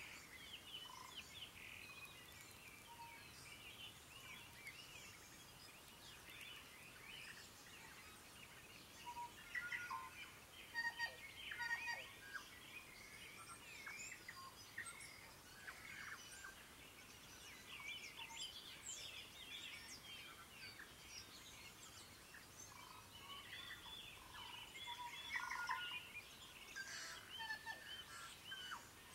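Morning chorus of many wild birds singing at once: dense, overlapping chirps and trills, with louder spells about ten seconds in and again near the end.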